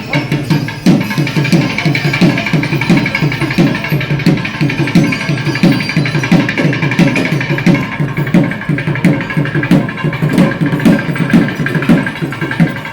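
Festival percussion ensemble playing loud, fast, dense drumming, with steady ringing high tones over it.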